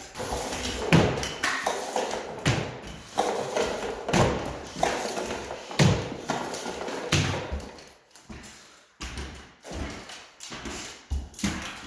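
Drywall taping work on stilts: irregular knocks, thuds and short scrapes of tools, mud pan and stilts, about one or two a second, easing off briefly about eight seconds in.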